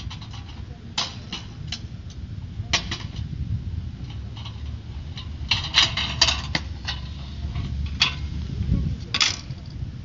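A metal prototype five-wheel cart being pushed over asphalt: a low rolling rumble from its casters, with its frame rattling in sharp metallic clicks and clatters, thickest around six seconds in.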